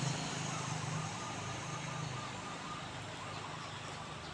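A passing vehicle's engine hum fades away over the first two seconds or so, leaving a steady outdoor hiss.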